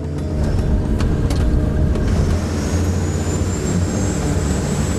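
Motor yacht's engines running steadily under way, a deep even drone, with a faint high whine coming in about halfway and a couple of light clicks about a second in.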